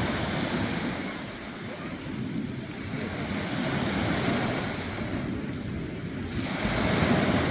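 Small waves breaking and washing up on a sandy shore, the surf swelling and fading every few seconds and loudest near the end, with wind rumbling on the microphone.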